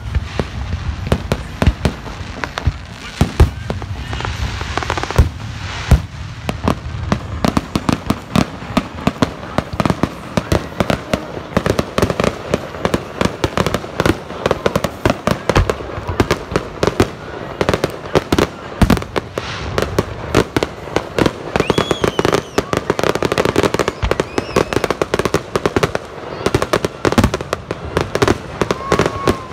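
Public fireworks display: a dense, unbroken string of aerial shell bursts and crackling, several sharp bangs a second.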